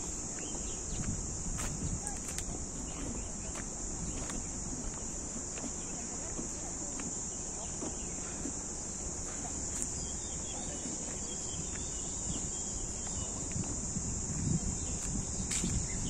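A steady, high-pitched insect drone from the trees, unbroken throughout, over a low outdoor rumble, with a few faint footsteps on the stone path.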